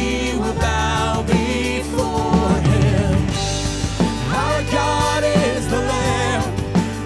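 Church worship band playing a song, with a singer's melody over steady bass notes and drums.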